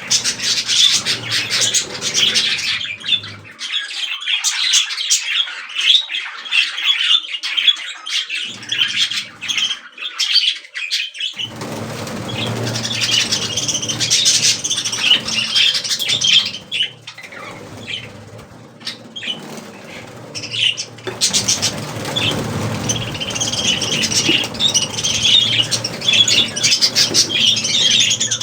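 A group of budgerigars chattering, a continuous busy stream of short chirps and warbles. A low steady hum runs underneath from about a third of the way in.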